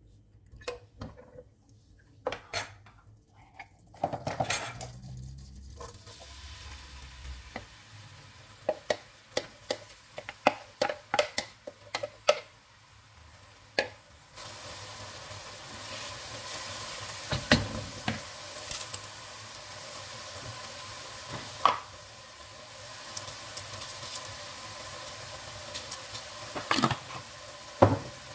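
A spoon clicking and knocking against a nonstick pot as butter and chopped onions go into hot oil and are stirred. About halfway in, a steady sizzle of the onions frying in oil and butter starts, with a few sharper knocks of the spoon on the pot.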